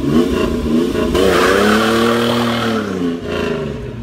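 Pontiac Fiero Formula's 2.8-litre V6 revving as the car pulls away and drives off. The engine note climbs, then swells and falls away, with a rush of hissing noise at its loudest.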